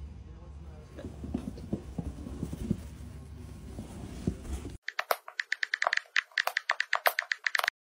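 Soft scuffs and knocks as a dog under a fabric storage box shoves it across carpet. Then a sudden run of sharp clicks, about six a second, for the last three seconds.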